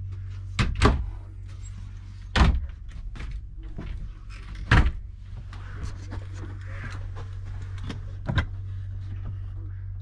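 Wooden cabinet and closet doors in a motorhome being shut and opened: four or five sharp knocks and latch clicks a couple of seconds apart, over a steady low hum.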